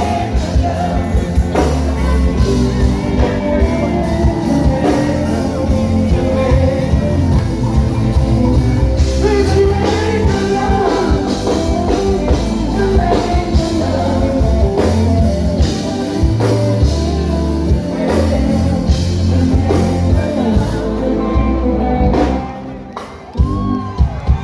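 Live stage performance: band music with a strong bass line and a vocalist singing. The music drops away briefly near the end.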